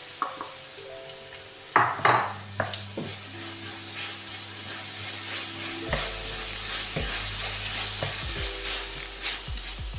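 Ground meat and carrot strips sizzling in a frying pan while being stirred with a wooden spoon, with a couple of sharp knocks about two seconds in.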